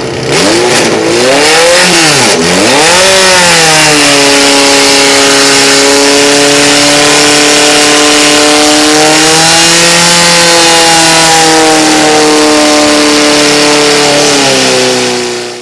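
Portable fire pump's engine revved hard, its pitch swinging up and down a few times, then held at high revs while it drives water through the hoses; the sound cuts off suddenly at the end.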